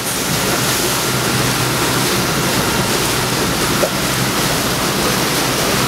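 Rough sea rushing and breaking around a sailing catamaran in strong wind: a steady, loud rush of white water.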